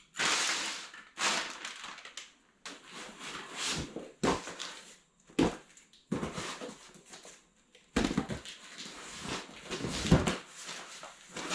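Plastic packaging crinkling and cardboard boxes being opened and handled, in irregular rustling bursts.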